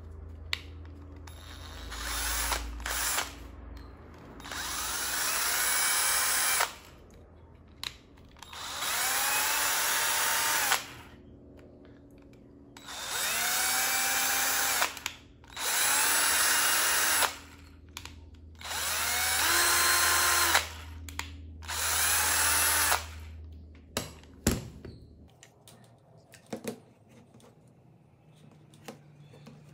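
Raitool 21V cordless drill run on and off with its trigger, about seven short runs of one to two seconds each, the motor whining up to speed and winding down each time. It is the rebuilt 5S 18650 battery pack being tested under load through clip leads. A few knocks follow near the end as the drill is set down.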